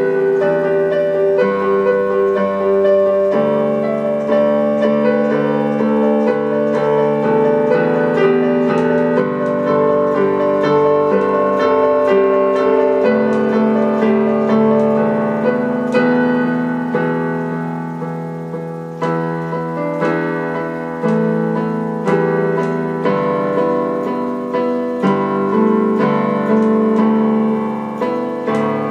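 Background piano music, notes played in a continuous flowing line.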